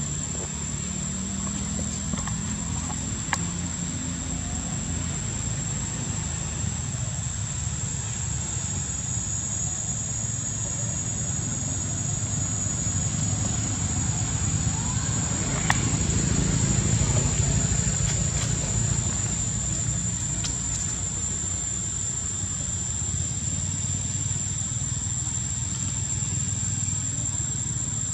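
Steady outdoor background noise: a low rumble with a constant high-pitched whine, swelling a little past the middle, and a few faint clicks.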